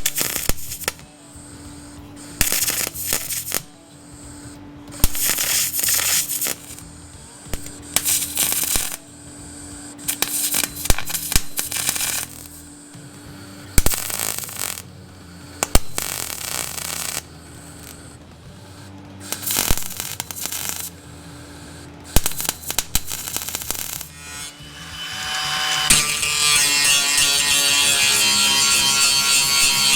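Metal-repair power tools at work over quiet background music: short bursts of noise, each lasting a second or two, then from about 25 seconds in a small electric tool such as a grinder spins up and runs steadily at high speed.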